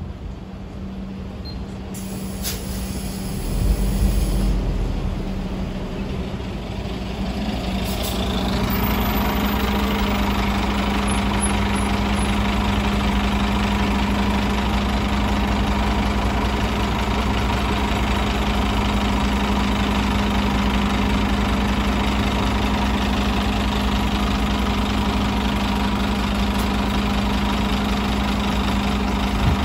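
A city bus's rear-mounted engine idling with a steady low hum, growing louder about eight seconds in and then holding steady.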